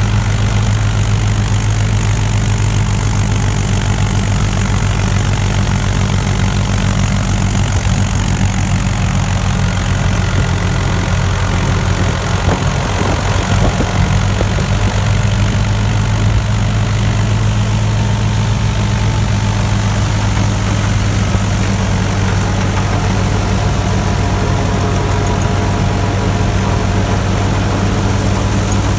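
Mahindra 475 DI tractor's four-cylinder diesel engine running steadily, pulling and driving a straw reaper.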